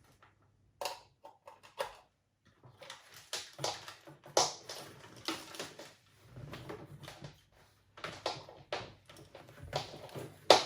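Irregular clicks, taps and rustling of small objects and tools being handled on a workbench while a cassette Walkman's heads are prepared for demagnetizing, with a sharp click near the end.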